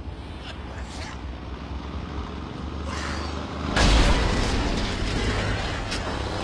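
Movie sound effects of an overturned truck grinding and scraping along the road on its side, with a few metal bangs. About four seconds in comes a sudden loud crash, and heavy grinding continues after it.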